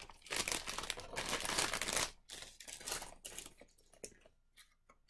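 Clear plastic bag crinkling as it is handled and opened and a wrapped bundle is pulled out. The crinkling is dense for about two seconds, then thins to scattered rustles that fade out near the end.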